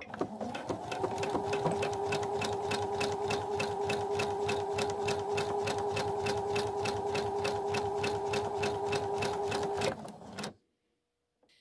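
Electric sewing machine stitching fabric at a steady speed, its motor running under a regular ticking of the needle strokes; it gets up to speed in the first second and stops about ten seconds in. The top thread tension is set to regular, and the machine is forming balanced stitches.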